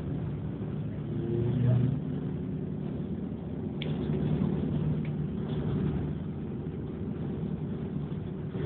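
City bus engine drone heard from inside the passenger cabin, with a brief louder swell about a second and a half in and two sharp clicks or knocks around four and five seconds in.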